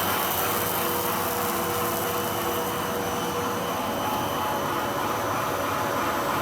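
Core-filling pet-treat extruding line running: a steady machine whir with a few constant high tones over it.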